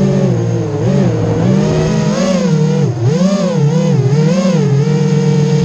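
FPV racing quadcopter's brushless motors and propellers buzzing, the pitch rising and falling again and again as the throttle is worked in flight.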